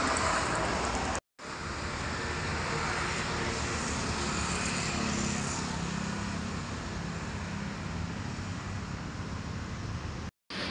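Steady outdoor background noise, broken by two brief drops to silence, about a second in and near the end.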